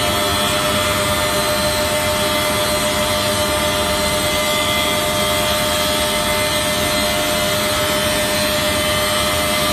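Multiple-blade rip saw with top and bottom planer heads running steadily, a loud, even machine noise holding many steady tones without a break.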